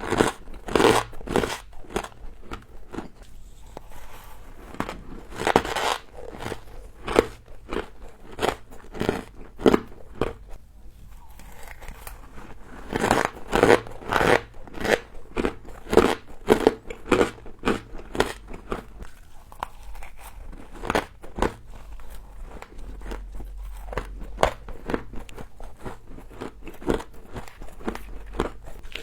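Close-up crunching of humidifier frost being bitten and chewed: crisp, irregular crunches in crowded runs with short lulls between.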